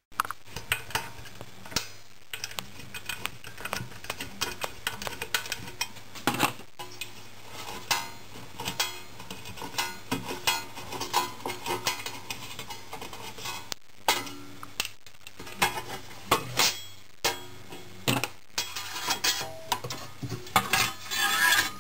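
Flat-blade screwdriver working screws out of a sheet-metal housing cover: many short metallic clicks, scrapes and clinks, with handling knocks.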